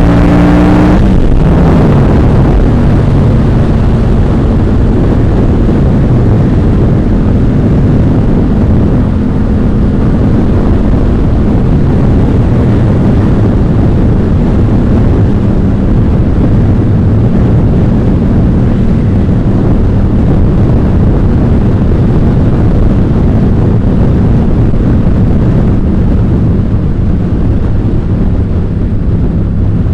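Yamaha MT-07 (FZ-07) 689 cc parallel-twin engine through an Ixil L3XB aftermarket exhaust, revving up briefly and changing gear about a second in, then holding a steady drone while cruising at speed, with heavy wind noise on the microphone.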